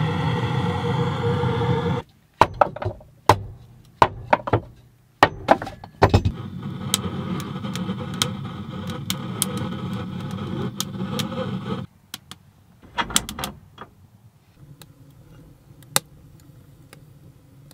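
Handheld gas torch hissing steadily into an old coal stove, shut off abruptly about two seconds in. Several sharp metal clanks and knocks on the stove follow, then the torch hisses again for about six seconds with ticks over it and stops sharply. A few sharp ticks near the end as the fire catches in the firebox.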